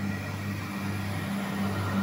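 Diesel passenger train running at the platform: a steady low engine hum that swells and fades about twice a second.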